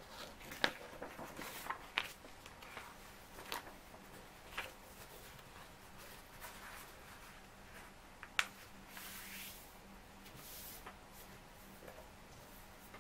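A sheet of printer paper being handled and folded on a wooden table: soft rustling and crinkling, broken by about five sharp clicks and snaps as the paper is creased, lifted and set down.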